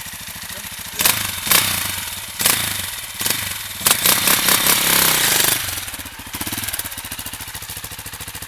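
Single-cylinder four-stroke trail bike engine running with a steady idle pulse. From about a second in to about five and a half seconds it is drowned by loud bursts of splashing water as the bike is ridden through the stream, then it settles back to idle.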